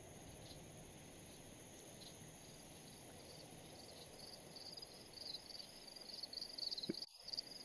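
Faint, high insect chirping over a steady background hiss, growing denser from about four seconds in and dropping out for a moment near the end.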